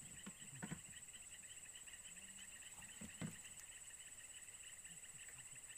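Faint insect chorus: a steady high-pitched trill with a pulsing chirr beneath it. Two soft thumps cut through it, one about a second in and another about three seconds in.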